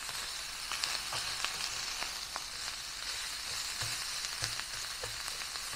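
Ground beef and pork sizzling as they brown in a hot pan, with scattered spatter pops and a few soft knocks of a utensil breaking up the meat.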